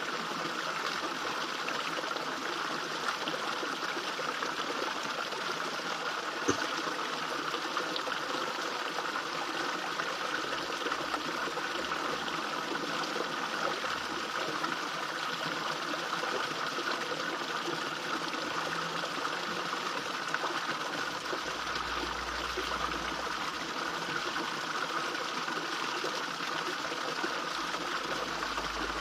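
Small garden fish-pond waterfall: water trickling and splashing steadily into the pond. One short click about six and a half seconds in.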